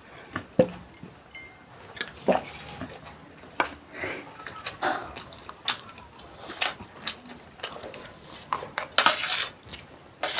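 Cutlery clinking and scraping against dishes as people eat noodles, in irregular, scattered clinks with a busier cluster near the end.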